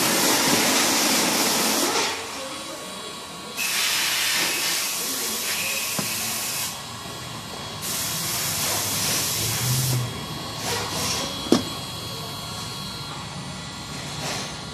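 Handheld heat gun's fan blowing hot air onto a car bumper to soften it for dent repair: a steady hiss that swells louder three times for two to three seconds and drops back between. A single sharp tap late on.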